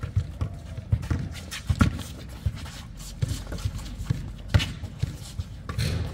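Basketball bouncing on an outdoor hard court mixed with players' running footsteps: a string of irregular dull thumps, a few sharper ones standing out.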